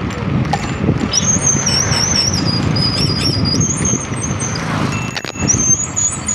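Vehicle noise on a rough road: a dense low rumble, with a thin high whistle that wavers up and down for a couple of seconds and returns near the end. A sharp knock comes about five seconds in.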